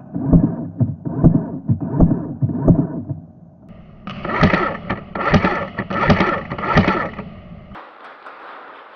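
Footsteps at a steady walking pace, heavy thuds about one every 0.7 seconds in two runs of four, with a short break in between.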